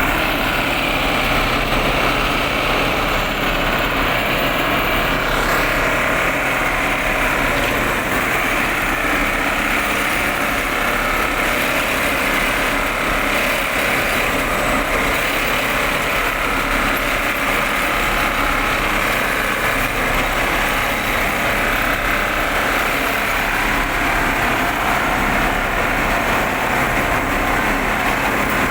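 PCTM machine running steadily, a dense, even mechanical clatter and hum with no change in speed.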